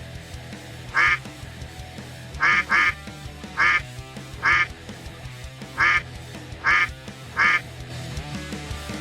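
Duck quacking: eight short, loud quacks at uneven intervals, over background music.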